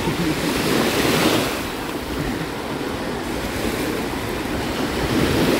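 Sea surf washing in the shallows, with wind rushing on the microphone.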